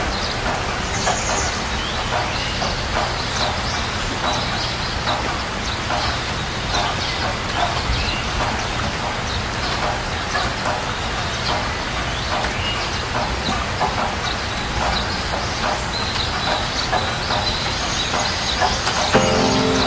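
Steady rain falling, with domestic chickens clucking in short, repeated calls throughout.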